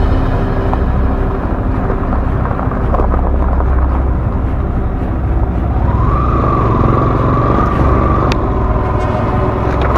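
Yamaha scooter's small single-cylinder engine running steadily at low speed, with rumble from the tyres on a rough dirt track.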